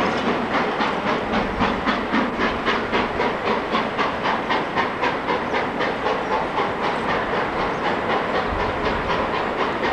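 Steam locomotive working a train of coaches out of the station. Its exhaust chuffs steadily at about four to five beats a second over a continuous hiss.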